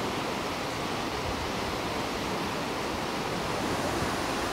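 Steady rush of water from the Petrohué River's waterfalls and rapids, even and unbroken.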